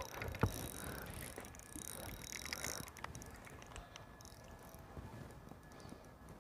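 Spinning reel being cranked, its gears whirring with fine, fast clicking, and a single light knock about half a second in.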